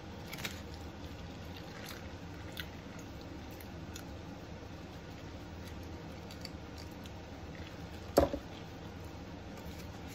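Quiet eating sounds: chewing, with a few faint clicks in the first few seconds. About eight seconds in there is a single sharp knock, the loudest sound.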